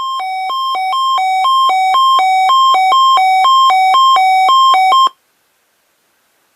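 Sangean CL-100 weather radio's alert alarm going off for a NOAA Weather Radio required weekly test. Two tones alternate low-high about twice a second and grow steadily louder, then cut off suddenly about five seconds in.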